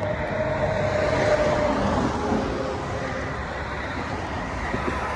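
Road traffic passing close by at speed: steady tyre and engine noise that swells over the first second or so and then eases off a little.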